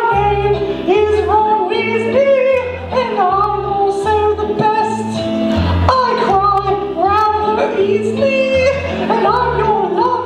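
A woman singing a song over instrumental accompaniment with a steady bass line.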